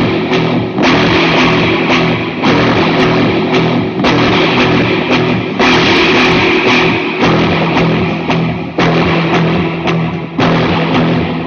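Loud heavy rock music: electric guitar chords over drums, with fresh hits every second or so.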